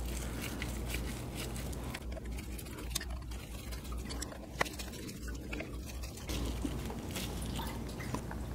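Faint handling noises from oil-covered gloved hands working on a motorcycle clutch hub and spring retainer: soft rubbing and a couple of small metal clicks over a low steady hum.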